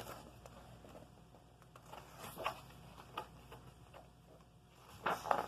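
Faint paper rustling and soft handling noises from a picture book's pages, with a louder rustle about five seconds in.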